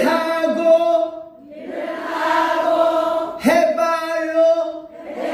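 A class of adult students singing a Korean song together in unison, in long held phrases with a short break about a second in.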